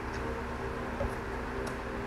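A person chewing a mouthful of rice, with a few soft mouth clicks about a second in and again near the end, over a steady low hum.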